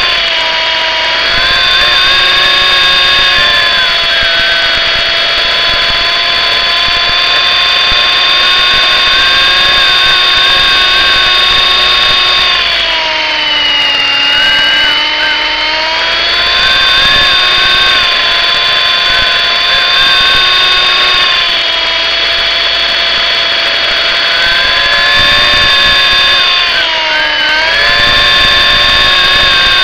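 Electric motor, gears and rotor of an MJX F45 RC helicopter, heard up close as a loud, steady high whine. The pitch sags twice, about halfway through and near the end, as the motor slows, then climbs back.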